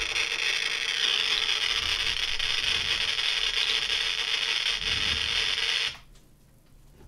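Homemade Geiger counter's small loudspeaker clicking so fast that the clicks run together into a dense crackle: about 183 counts per second from an SI-8B pancake tube held over uranium-bearing autunite, a strongly radioactive source. The clicking cuts off suddenly about six seconds in when the clicker is switched off.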